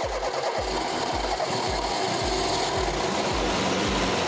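Classic Lada four-cylinder engine running at idle on a makeshift single-point fuel injection setup with one small injector. It runs steadily, with a low throb about twice a second. The injector is putting a lot of fuel in.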